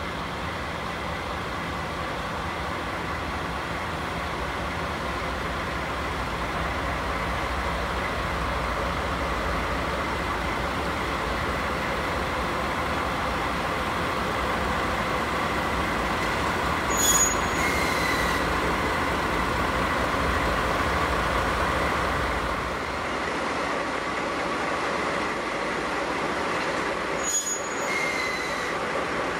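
A DD51 twin-engine diesel-hydraulic locomotive's engines run steadily as it rolls slowly into the station. About three-quarters of the way through, the low rumble drops out and a steady hiss of escaping steam from the C58 steam locomotive takes over. Two short sharp clicks come about halfway and near the end.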